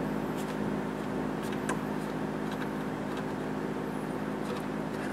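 Steady machine hum in the room, with a few faint clicks and taps as aluminum mesh is handled against a plastic grille.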